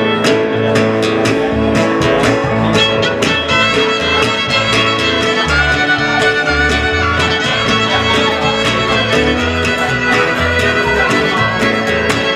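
Live country band playing an instrumental passage: a fiddle carries the melody over steadily strummed acoustic guitar, with a bass line underneath.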